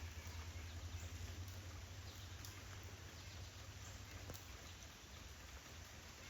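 Steady rain falling: an even hiss with scattered small drop ticks, over a low rumble.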